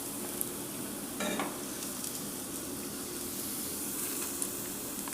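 Breaded chicken croquettes deep-frying in hot oil, a steady sizzle.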